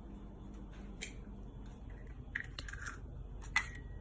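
A few light clicks and knocks with a short scrape of kitchenware: a cup of egg and milk being handled. The sharpest click comes near the end.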